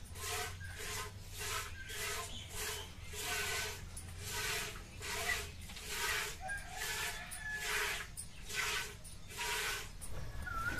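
Milk squirting in rhythmic jets into a steel bucket as a Gir cow is milked by hand, about two squirts a second.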